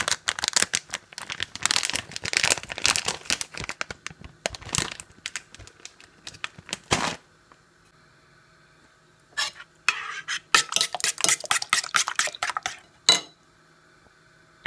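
A metal fork beating eggs and crème fraîche in a bowl, a rapid run of clinks and scrapes against the bowl. It stops about seven seconds in, then starts again for about three seconds and ends in one sharp clink.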